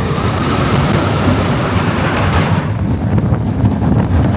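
Roller coaster train rumbling and rattling along its track, with wind rushing over the microphone; the high rush of wind drops away about two-thirds of the way through.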